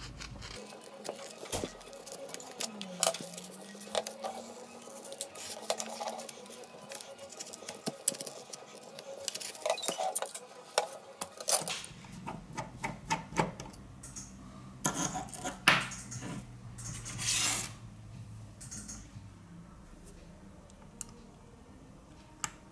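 Small metal clicks and taps from a precision screwdriver and pry tool working the screws and metal bracket inside a Huawei P8 Lite 2017 phone. The clicks come irregularly throughout, with a brief scrape about three-quarters of the way through.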